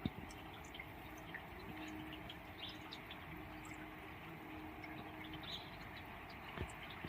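Steady rain with scattered drops dripping and ticking, and two dull knocks, one right at the start and one near the end.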